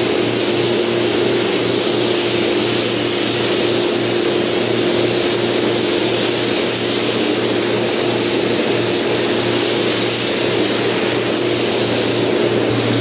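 Air spray gun hissing steadily as a painter sprays a truck grille, easing off near the end, over the constant low hum of the paint booth's fans.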